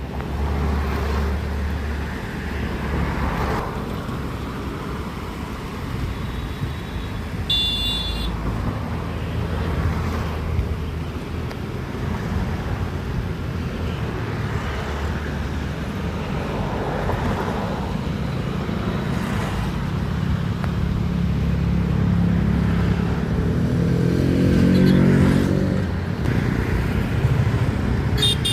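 Road traffic: motor vehicle engines running steadily, with one engine growing louder and more prominent about two-thirds of the way through. A short high-pitched tone sounds once about a quarter of the way in.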